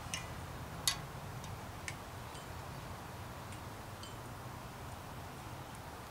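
A few light, sharp clicks and ticks from hands working on a bicycle, the loudest just under a second in, over a steady low hum.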